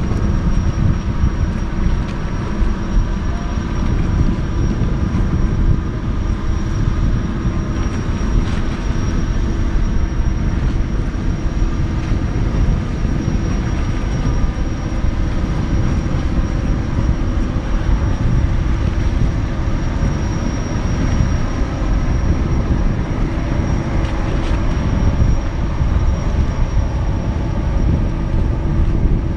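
Steady drone of ship machinery on a harbour: a dense low rumble with a few constant hum tones and a faint steady high whine, unchanging throughout.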